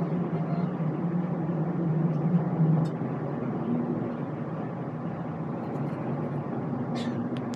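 Passenger train running, heard from inside the carriage: a steady rumble with a low hum, a little louder about two to three seconds in, then easing.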